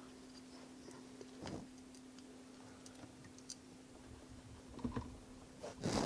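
Faint, scattered small clicks of a screwdriver turning the hard drive's retaining screw back into an all-in-one PC's chassis, a little louder near the end.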